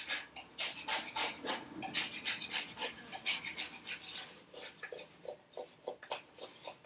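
Flat scraper blade scraping cleaner-softened grease build-up off a painted wooden cabinet door in short, quick strokes. The strokes come thick and fast at first, then thin out and soften in the last few seconds.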